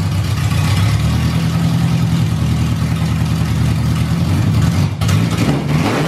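Honda K-series four-cylinder engine, swapped into a Civic wagon, idling steadily and loudly; about five seconds in the sound briefly turns noisier.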